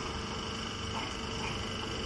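Mini hay baler running steadily: a continuous mechanical hum with a few held tones, and faint short squeaks now and then.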